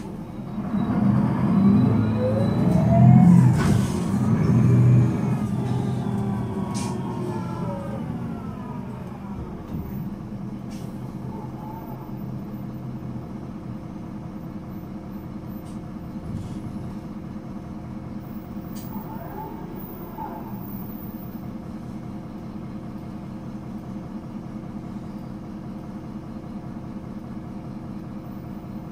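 Solaris Urbino 12 III city bus with a DAF 9.2-litre inline-six diesel and ZF Ecomat 6HP504 automatic gearbox, heard on board: for the first several seconds it pulls hard and loud, with the gearbox's whine rising and then sliding back down. From about nine seconds on it settles to a steady, quieter engine drone.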